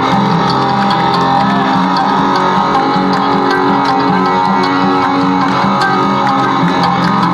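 Cello metal played live: amplified cellos bowing a sustained, guitar-like melody over a drum kit keeping a steady beat with regular cymbal strikes, loud through the festival PA.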